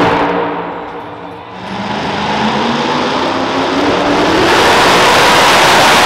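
Super modified two-wheel-drive pulling truck engines: the loud engine sound falls away at the start, then about a second and a half in another truck's engine climbs in pitch and builds to a loud, steady full-throttle run as it starts its pull against the sled.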